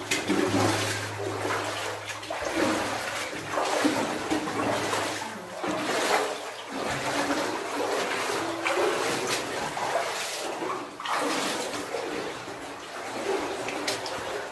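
Boots wading through water in a flooded mine adit, sloshing and splashing with each stride, in swells every second or two.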